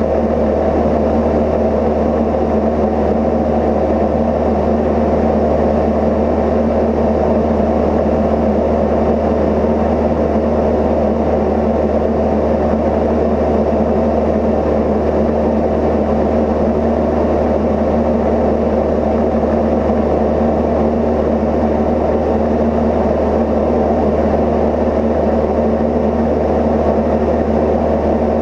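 Cozy Mk IV light aircraft's pusher engine and propeller running steadily in flight, a constant low hum with no change in pitch.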